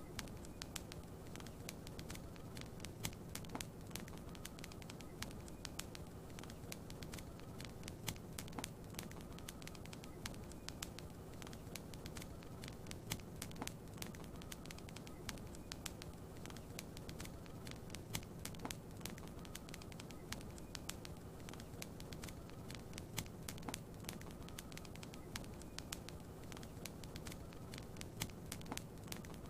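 Wood fire crackling in a fireplace, with frequent irregular sharp pops and snaps over a steady low hiss of soft rain.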